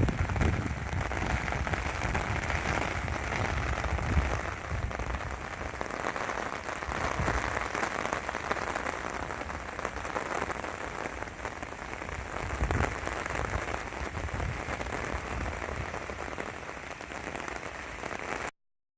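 Heavy typhoon rain falling, a steady dense hiss with a low rumble beneath it, cutting off suddenly near the end.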